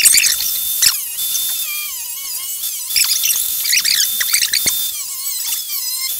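Cordless angle grinder cutting into a steel exhaust silencer casing: a steady high motor whine that sags and recovers as the disc bites, with screeching, wavering squeals of the disc on the metal.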